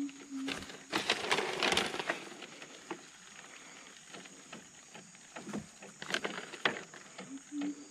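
Outdoor riverside sounds: a steady thin high drone like an insect, a low call of a few short notes from an animal at the start and again near the end, and a louder burst of noise about a second in among scattered clicks and knocks.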